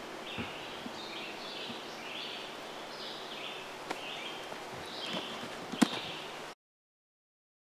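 Woodland ambience with small birds chirping in short repeated phrases and a sharp click near the end, before the sound cuts out to silence about six and a half seconds in.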